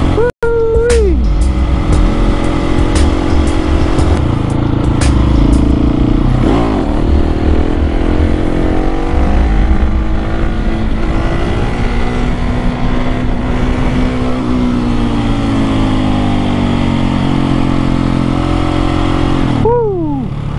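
Husqvarna 701 supermoto's single-cylinder engine running under way, its revs slowly rising and falling. There is a brief drop-out about half a second in. Near the end the revs fall sharply and then climb again.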